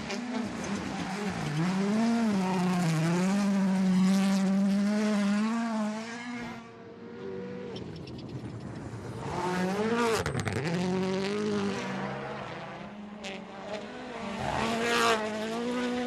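Rally cars' turbocharged four-cylinder engines running flat out past the spectator, in three separate passes. The pitch swoops up and dips through gear changes and lifts.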